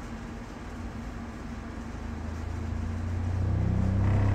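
An 8-inch car-audio subwoofer playing free-air, with no enclosure, reproduces a low bass sine sweep, a deep tone that grows steadily louder. Buzzy overtones come in over the last second.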